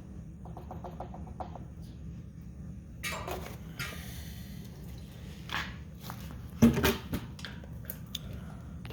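Scattered clatter and knocks from containers and tools being handled, with the loudest knocks about two-thirds of the way through, over a steady low hum.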